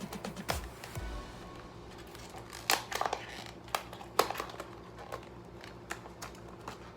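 Cardboard and plastic earphone packaging being pried and torn open by hand: irregular crinkling with sharp clicks and snaps, the loudest a few seconds in.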